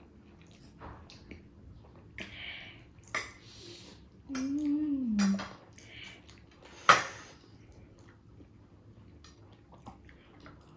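Eating at a table: cutlery clicking against dishes, with one sharp clink about seven seconds in that is the loudest sound, a couple of short noisy bursts, and a brief hum from one of the eaters between about four and five seconds.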